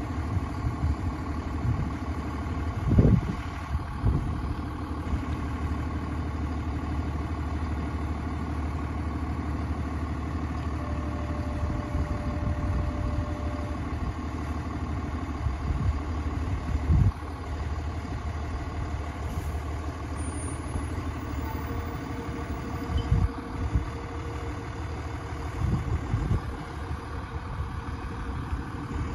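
Fire engine's diesel engine idling steadily as the truck creeps slowly forward, with a few brief thumps now and then.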